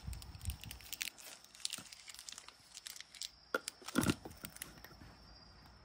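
A small plastic treat packet crinkling, with scattered light clicks and ticks from the dry kibble in a wooden bowl; a dull thump about four seconds in.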